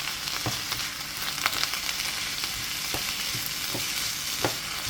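Sliced cabbage, bell pepper and carrot sizzling in hot oil in a frying pan as they are stirred. A steady sizzle, with a sharp click from the stirring utensil against the pan about once a second.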